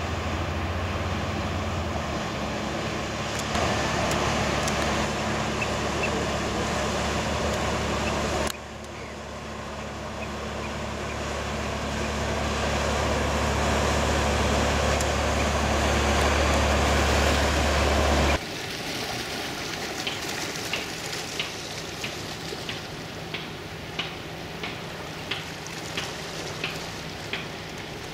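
Fishing cutter's diesel engine running steadily as the boat passes, a low hum under the rush of its wash; the sound jumps in level twice at sudden cuts. In the last third it is quieter, with a sharp tick about twice a second.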